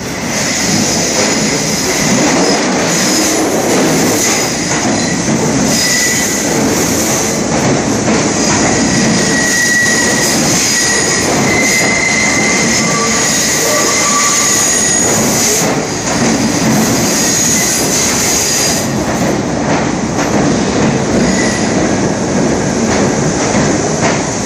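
R42 subway train pulling into an underground station: loud, steady running noise of steel wheels on rail that swells in the first second, with high-pitched wheel squeals for several seconds in the middle as the train slows.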